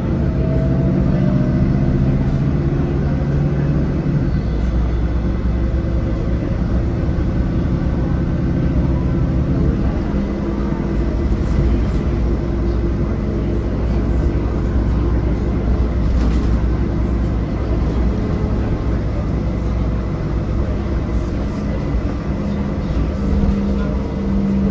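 Inside the cabin of a moving city bus: the engine and drivetrain run steadily under road and tyre noise, the engine note shifting near the start and again near the end as the bus changes speed, with a few light rattles from the body.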